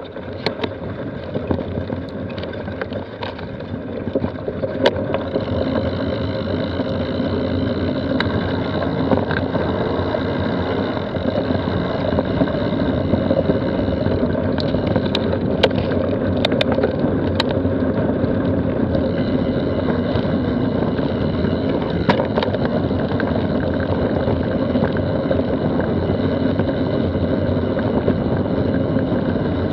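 Mountain bike coasting fast down a gravel trail: a steady rush of wind on the action camera's microphone mixed with tyre rumble on loose gravel, with scattered sharp clicks and rattles. The noise grows louder over the first several seconds, then holds steady.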